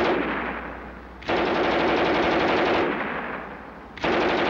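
German MG 34 machine gun (7.92 mm Mauser) firing long, fast bursts. One burst stops as the sound begins and dies away over about a second. A full burst of about a second and a half follows, and another starts near the end.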